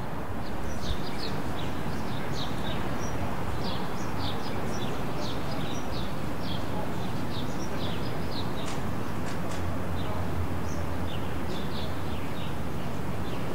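Small birds chirping, many short high calls scattered throughout, over a steady hum of city traffic.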